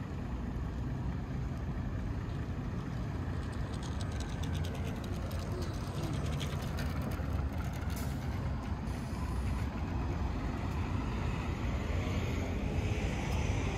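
Road traffic around a large city square: a steady low rumble of cars and buses, with a run of light clicks in the middle and a rising hiss near the end.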